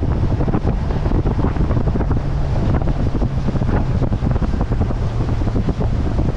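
Strong wind buffeting the microphone, a loud rushing flutter, with a low steady hum underneath.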